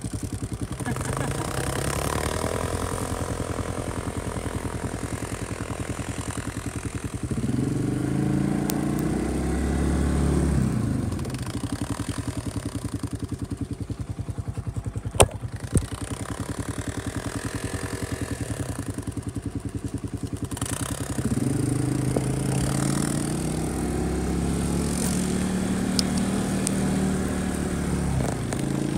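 Side-by-side UTV engine running while driving through deep snow, its pitch rising and holding twice as the throttle opens, about seven seconds in and again around twenty-one seconds. Two sharp knocks come near the middle.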